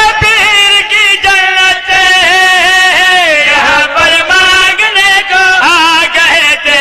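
Devotional Punjabi song (manqabat) in praise of Ali Asghar: a solo voice sings long, wavering, melismatic held notes.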